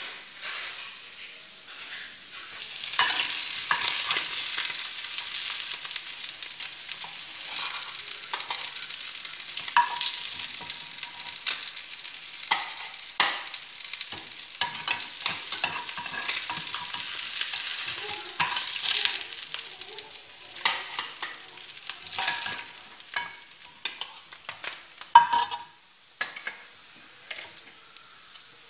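Food frying in hot oil: a steady sizzle with many sharp crackles that starts suddenly about three seconds in. Past the twenty-second mark it thins to scattered pops, one of them loud, and dies down.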